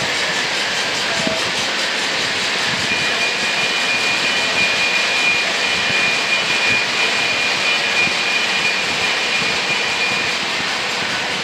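Lionel O gauge model trains running on three-rail track: a steady whir of locomotive motors and rolling wheels, with a thin high whine held for several seconds in the middle.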